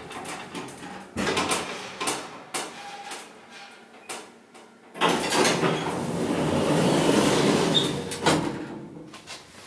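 Inclined elevator car arriving with a series of clicks and knocks, then its automatic sliding doors opening: a loud rattling run starting about five seconds in, ending with a sharp knock as the doors stop.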